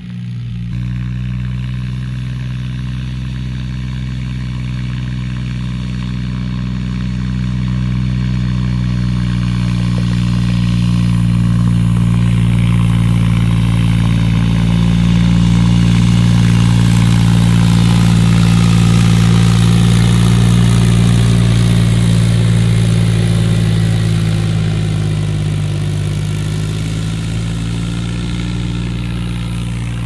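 Mahindra tractor's diesel engine running steadily as it pulls a levelling board across ploughed soil. It grows louder as the tractor draws near, loudest about halfway through, then eases off a little near the end.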